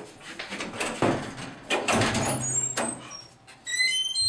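A few knocks and thuds of a door being handled and opened. Near the end comes a short run of high ringing tones.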